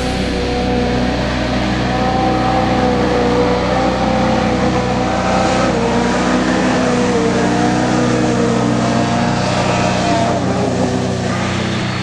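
Snowmobile engine held at high revs as the sled skims across open water, its pitch wavering a little.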